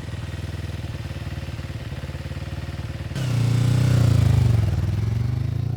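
Motorcycle engine running at a steady pace; about three seconds in it gets louder and the engine note falls, then climbs again.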